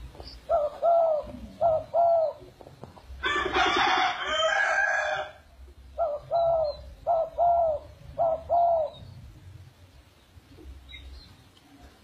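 A rooster crowing once, about two seconds long, between two runs of short cooing calls from a pigeon that come in pairs, two pairs before the crow and three after.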